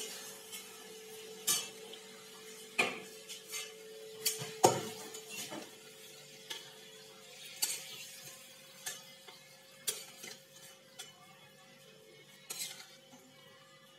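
Metal spatula knocking and scraping against a metal kadai and a plate while cooked curry is served out: scattered short clinks, the loudest about five seconds in.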